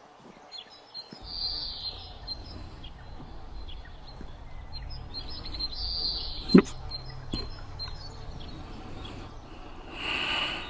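Rural ambience: birds chirping over a steady low rumble that starts about a second in. One sharp click about six and a half seconds in.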